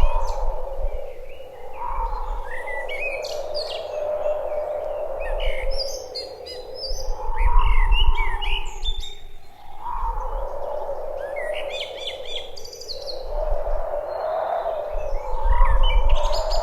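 Birds chirping and calling in short, repeated phrases, over a steady low hum that swells and fades every few seconds.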